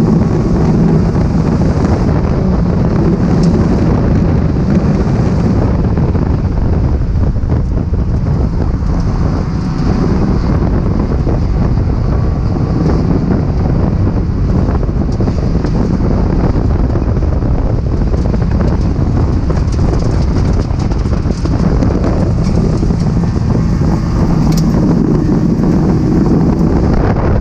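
Datsun 280ZX race car's straight-six engine running steadily on track, heard from inside the car through a helmet-mounted microphone, with wind buffeting the mic.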